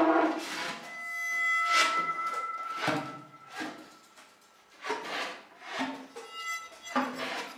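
Free-improvised live music: irregular scraped and bowed-sounding gestures in separate bursts, with a high held tone about a second in that lasts about a second.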